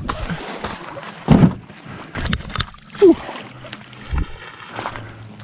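Water splashing and sloshing in the shallows as a large flathead catfish is hauled ashore, with about four heavy splashes at irregular intervals.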